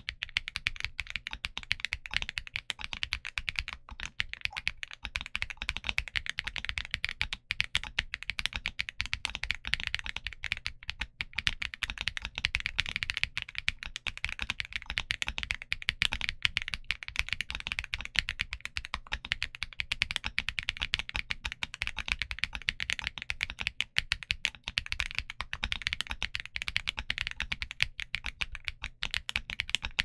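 Fast, continuous typing on a Keydous NJ87 Pro mechanical keyboard fitted with Kailh Box Coffee switches and PBT keycaps: a dense, unbroken patter of keystrokes.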